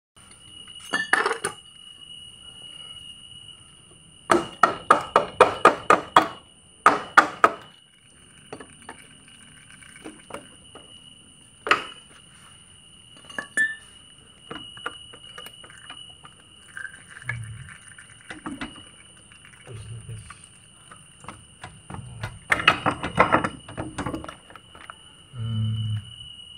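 Metal clinks and taps of hand tools on a Yamaha Vega ZR's engine case as the clutch cover is worked off. There is a fast run of about a dozen clicks a few seconds in, scattered single clinks, and another cluster near the end.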